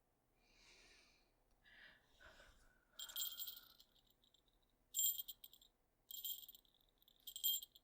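Small jingle bell, a catgirl's collar bell sound effect, jingling in four short shakes about a second apart, the first about three seconds in.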